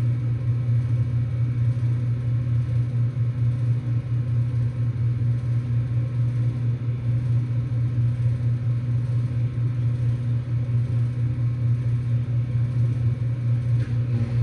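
2023 Ruud Achiever heat pump's outdoor unit running steadily in heating mode, its compressor giving a continuous low hum.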